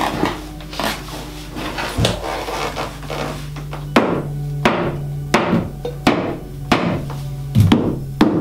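Hammer blows on a wooden drift set against a boat's floor timber, trying to knock the stuck timber loose: a few spaced blows, then from about halfway a steady run of blows about one and a half a second. The timber is not budging, held fast by old putty.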